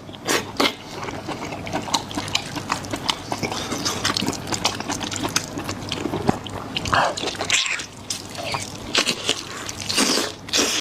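Close-miked eating: chewing and wet mouth sounds with many small clicks, and several louder noisy bursts in the first second, around the seventh second and near the end.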